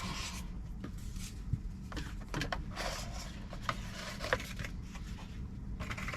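Hands rummaging through a small product box: light rustling and rubbing of packaging with scattered small clicks and taps, over a steady low hum.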